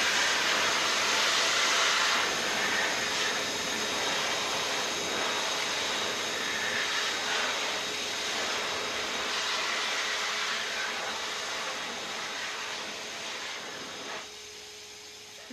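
Stiebel Eltron high-speed hand dryer running: a strong rush of air over a steady high motor whine. Near the end the rush of air drops away, leaving the whine.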